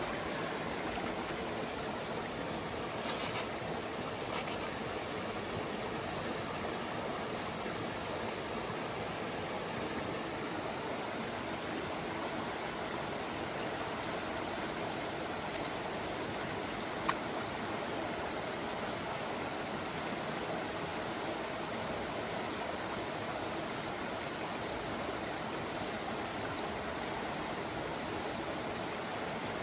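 Mountain stream rushing steadily over rocks, with a few brief clicks over it.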